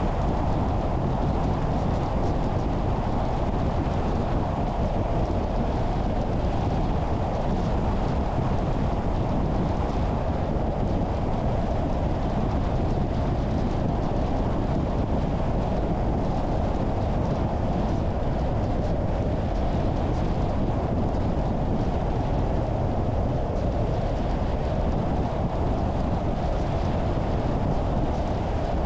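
Steady road noise of a car driving at a constant speed: tyre and engine sound, with no changes or distinct events.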